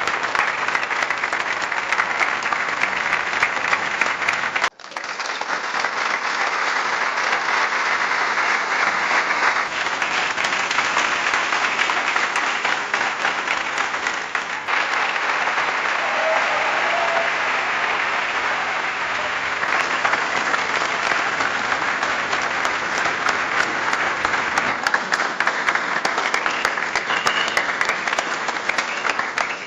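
An audience applauding, many hands clapping in a dense steady patter. It cuts off sharply about five seconds in and picks straight up again as further rounds of applause.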